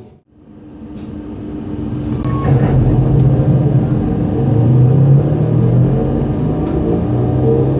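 Z 20892, a Z2N electric multiple unit motor car, running with its mechanical drone and a steady tone. After a brief drop at the start, it grows louder over the first two seconds or so, then holds steady.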